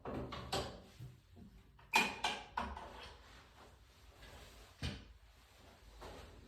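A few short knocks and clicks during a chiropractic low-back adjustment on a treatment table, the sharpest about two seconds in, with another near five seconds.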